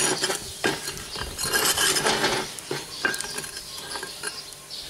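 A metal scraper scraping and clinking against the ash and embers of a cement bucket-style wood stove, pushing ash onto the fire to damp it down. The scrapes and clinks come irregularly, busiest in the first half and thinning out toward the end.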